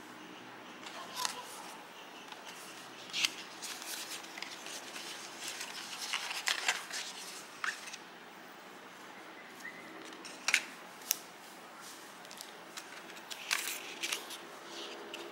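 Hands handling stiff cards and a small paper booklet: sporadic crisp paper rustles and sharp card clicks and taps, the loudest a little past the middle.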